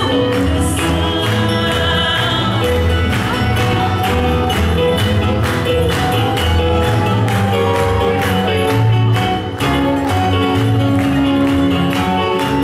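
Live fado: a woman singing with vibrato over plucked Portuguese guitar, classical guitar and double bass.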